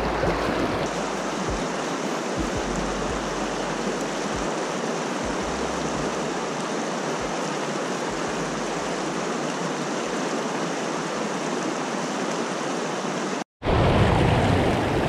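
Fast freestone river water rushing steadily over rocks and through pocket water. It breaks off for an instant near the end and comes back slightly louder.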